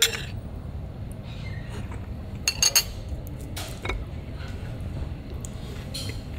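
A metal fork clinking against a ceramic plate as fruit is picked up: a sharp clink at the start, a quick cluster of clinks about two and a half seconds in, and a couple more soon after, over a low steady room hum.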